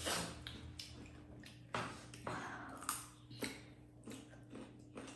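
Close-up eating sounds: wet chewing and mouth smacks, with a handful of short, sharp clicks a second or so apart.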